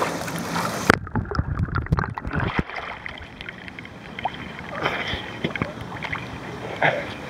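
Pool water sloshing and lapping against a camera held at the waterline. About a second in, the microphone dips under and the sound turns muffled, with low gurgles and knocks, for a couple of seconds before it surfaces again.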